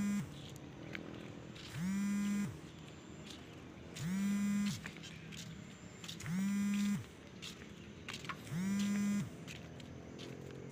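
A low-pitched electronic warning horn sounding in regular blasts, about one every two seconds, each under a second long and sliding up at the start and down at the end.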